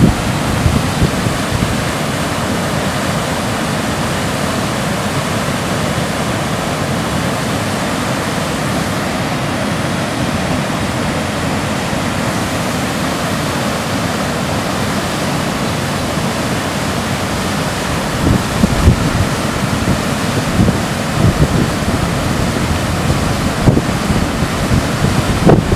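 Waterfall running high and fast, a steady loud rush of falling water. From about two-thirds of the way in, wind buffets the microphone in uneven low gusts.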